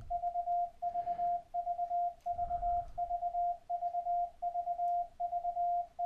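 Morse code letter V (three dots and a dash) sent over and over as a steady single-pitch CW tone from FLdigi software, about one V every three-quarters of a second. The keying edge timing is being turned down while it plays.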